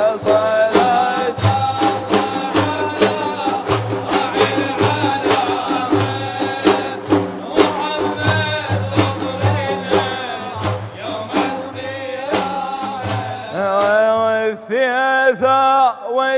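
Large hand-held frame drums beaten together in a steady, dense rhythm under men's sustained singing of a praise song. Near the end the drumming thins and a solo male voice sings an ornamented, gliding vocal line.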